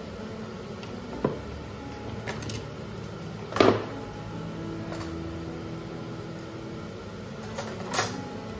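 Cutlery and a plastic cutlery tray in a kitchen drawer clinking and knocking as things are taken out. There are three sharp clinks, the loudest about three and a half seconds in and another near the end.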